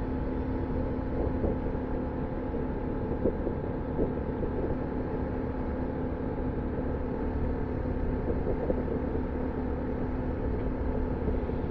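2021 Honda Monkey's 125cc air-cooled single-cylinder engine running at a steady speed under way, its pitch holding even.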